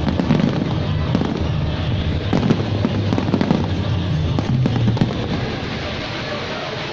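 Fireworks bursting and crackling in a rapid string of sharp bangs over the display's music soundtrack, the bursts thinning out after about five seconds.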